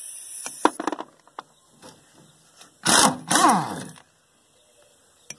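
A few sharp metal clinks about half a second in, then a dog barking twice in quick succession near the middle, each bark falling in pitch.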